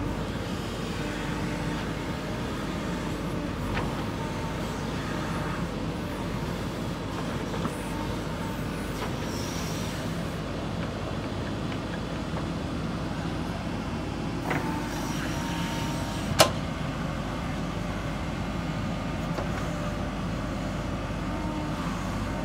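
JCB backhoe loader's diesel engine running steadily while the backhoe digs and lifts soil, with a few brief clanks and one sharp, loud knock about sixteen seconds in.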